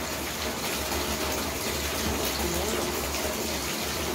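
Water running in a steady rush, unbroken throughout.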